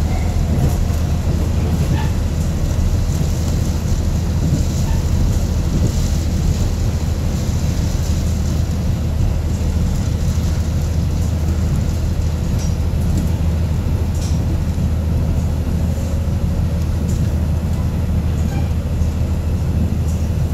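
Inside a KiHa 48 diesel railcar on the move: a steady low drone from the diesel engine together with the rumble of the wheels on the rails, with a few faint clicks and rattles from the carriage.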